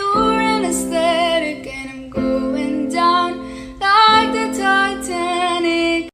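Song playing: a sung melody with plucked guitar accompaniment, held notes wavering in pitch, cutting off suddenly at the end.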